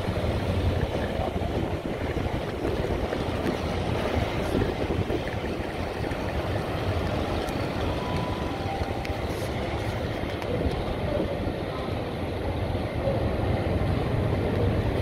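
Train of coaches rolling slowly past on the rails, a steady low rumble.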